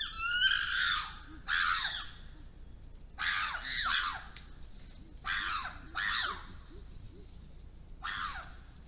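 Chimpanzees screaming: a run of about seven short, shrill calls, mostly in pairs, growing fainter toward the end as the group moves off.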